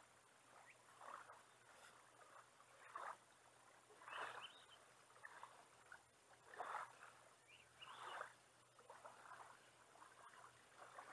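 Near silence, broken by a few faint, irregular splashes of water at the shoreline.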